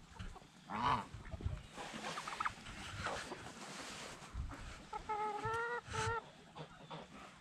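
Mixed backyard poultry flock of chickens, geese and guinea fowl calling while feeding: scattered clucks and short calls, with a quick run of four or five pitched calls about five seconds in.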